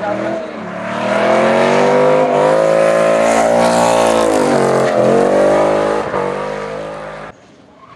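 Drift car's engine revving hard at high rpm as the car slides past sideways with its rear tyres spinning and smoking. The pitch rises about a second in, dips briefly about five seconds in and picks up again, then fades and cuts off suddenly shortly before the end.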